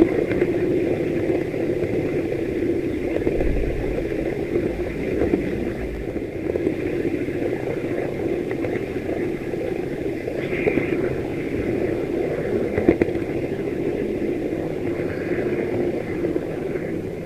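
H0 model locomotive's small electric motor and gear drive humming steadily as it runs along the track, with a few sharp clicks from the wheels over rail joints.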